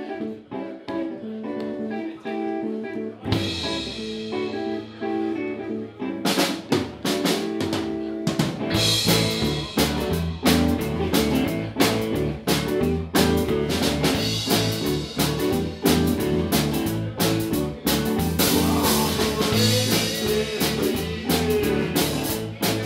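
Live band playing: a repeating electric guitar figure opens, a cymbal rings out about three seconds in, and the drum kit comes in with a steady beat about six seconds in, the full band playing from then on.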